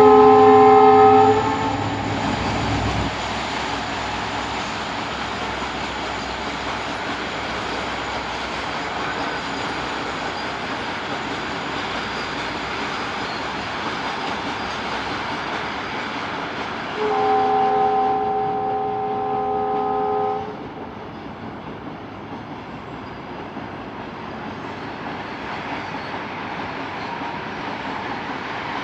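Goods train's diesel locomotive horn: a blast ending about a second in, then the steady running noise of the passing train. A second horn blast of about three seconds comes about two-thirds of the way through, after which the running noise is quieter.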